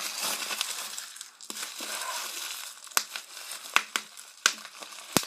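Clear plastic packaging bag crinkling as it is handled and pulled open: a steady rustle at first, then several sharp crackles and clicks in the second half.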